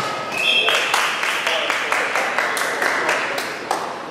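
Spectators clapping and cheering in a sports hall: a brief high-pitched tone just after the start, then a dense burst of rapid, uneven claps that swells about half a second in and fades over the next three seconds.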